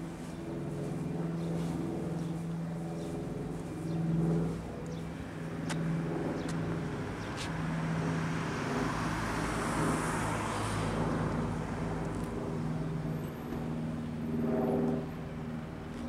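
Outdoor traffic sound: a car passes about ten seconds in, rising and fading away, over a steady low hum that comes and goes. A few faint clicks are scattered through it.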